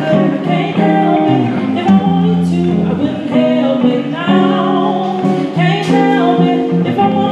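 A woman singing soulfully into a microphone over live instrumental accompaniment.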